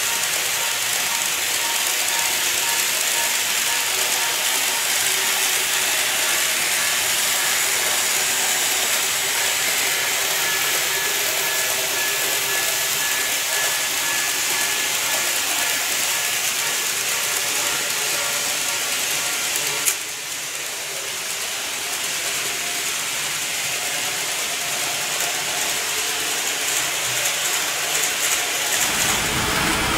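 Model electric train running on sectional track: a steady whirring rattle of its motor and wheels on the rails. A sharp click about twenty seconds in, after which the sound is a little quieter.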